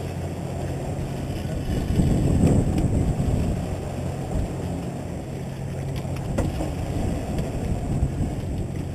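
A boat's engine drones steadily under way, with water rushing along the hull and wind on the microphone. It swells a little about two seconds in.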